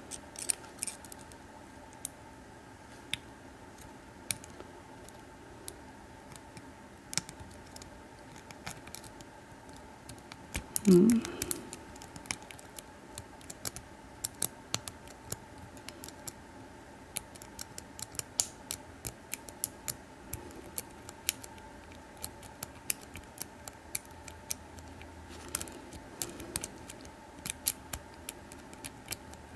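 Lock pick and tension wrench working the pin stack of a Stanley 828145 shrouded steel padlock during single-pin picking: scattered small metallic clicks and ticks, coming more often in the second half. A short vocal sound about eleven seconds in.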